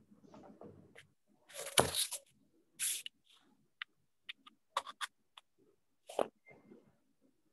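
Irregular rustles, bumps and sharp clicks from a handheld phone being handled close to its microphone. The loudest rustle comes about two seconds in, and a run of quick clicks follows.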